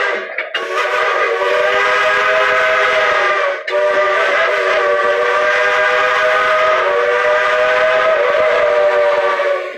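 Multi-chime steam whistle of a coal-fired steam locomotive built in 1938, blowing a chord in two long blasts with a short break between them about a third of the way in.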